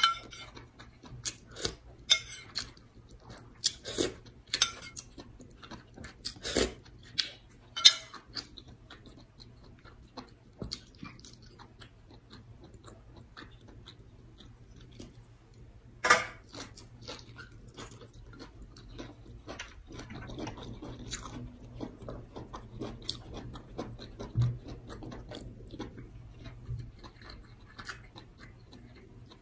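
Chewing and lip smacking as someone eats cooked vegetables and rice by hand. A string of sharp wet mouth clicks comes in the first eight seconds, one loud smack about sixteen seconds in, and softer steady chewing later.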